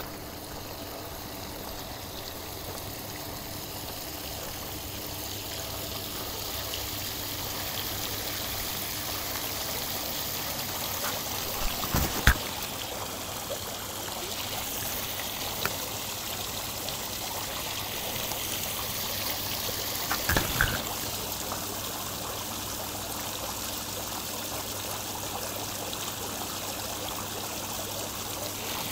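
Steady rain with a rush of running water, growing slightly louder. A few sharp knocks come about twelve seconds in, the loudest moment, and another short cluster of knocks about twenty seconds in.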